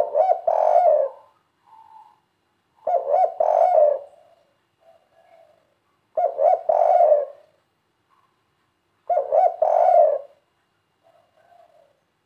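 Spotted dove cooing its three-beat 'kuk 3' call: four loud phrases about three seconds apart, each a quick run of notes, with softer coos between them.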